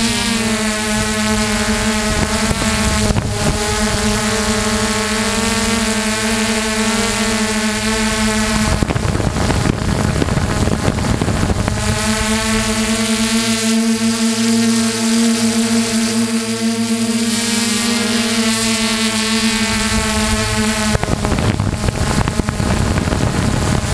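Hexacopter drone's electric motors and propellers humming steadily at a fixed pitch, heard close up from the camera on the craft. Wind rushes over the microphone about nine seconds in and again near the end, briefly swamping the hum.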